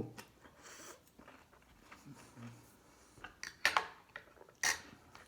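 Light clinks and knocks of utensils and dishes, with a few sharper clicks between about three and a half and five seconds in.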